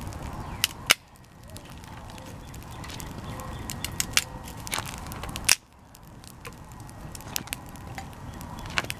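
Wood campfire crackling and popping, with two sharp loud pops about a second in and about five and a half seconds in, over a steady low rushing noise.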